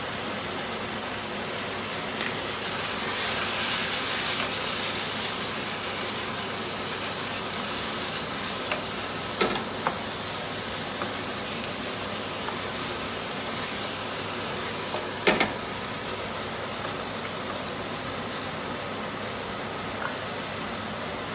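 Chicken wings sizzling in a non-stick wok as they stir-fry, a steady frying hiss that swells for a couple of seconds about three seconds in. A wooden spatula knocks sharply against the pan a couple of times as the wings are turned.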